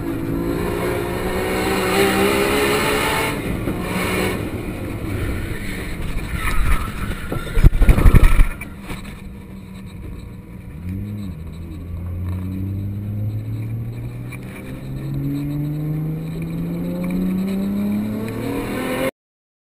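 Race-prepared Nissan Skyline GT-R R34's twin-turbo straight-six heard from inside the cabin: it revs up, eases off, then pulls hard again with its pitch climbing and a gear change partway through. A loud, low rumbling burst comes about eight seconds in, and the sound cuts off just before the end.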